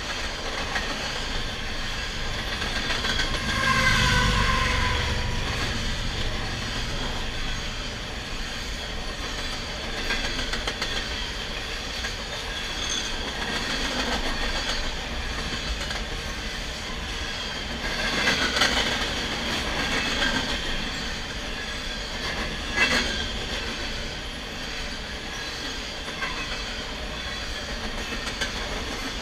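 Freight train of covered hopper cars rolling past close to the track, steel wheels clattering over the rails. A high-pitched wheel squeal sounds about four seconds in and again around eighteen seconds. A sharp bang comes about twenty-three seconds in.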